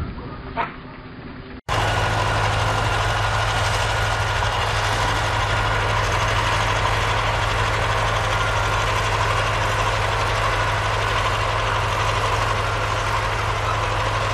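A heavy vehicle's engine running steadily at an even pitch, with no revving. Before it, a quieter stretch with a couple of sharp knocks cuts off abruptly a second or two in.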